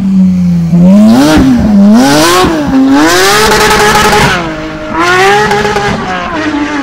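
Porsche 992 GT3's 4.0-litre flat-six with IPE headers and straight-piped exhaust, revved hard: the pitch swings up and down several times, holds high for about a second, drops, then climbs again near the end.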